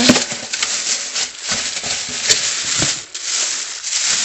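Thin plastic carry-out bag rustling and crinkling as hands open it and rummage around a foam takeout container, with a couple of sharp snaps.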